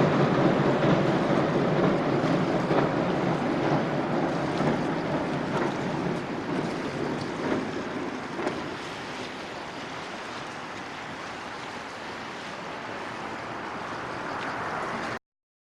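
Freight train moving away, its rumble fading over about ten seconds into a steady hiss of wind and water; the sound cuts off abruptly near the end.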